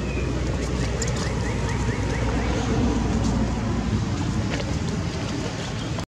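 Steady outdoor background rumble and hiss, with a run of faint short rising chirps about a second in.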